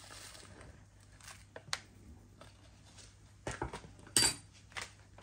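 A few short, light clicks and rustles of kitchen handling as a teaspoon of sumac is sprinkled over raw minced meat in a terracotta bowl. The sharpest click comes about four seconds in.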